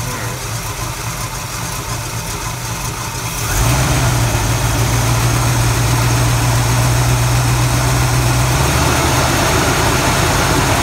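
1974 Chevrolet C10's small-block V8 idling steadily on its newly fitted fuel pump, growing louder about three and a half seconds in and easing back near the end.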